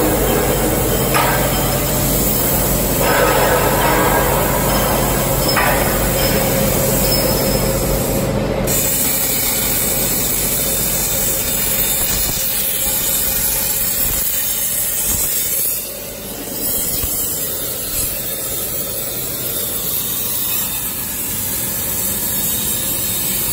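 CNC plasma cutting machine cutting steel box section: a steady hiss from the cut over a constant machine hum. The sound changes abruptly about eight and a half seconds in, becoming thinner and more hissy.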